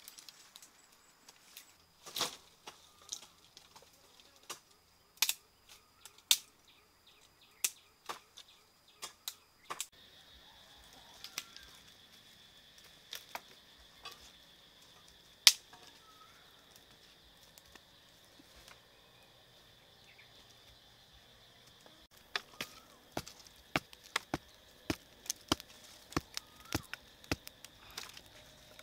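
Dry sticks and twigs snapping and knocking together as they are broken and stacked over a small fire, irregular sharp cracks that come thick and fast near the end. Insects drone steadily in the background.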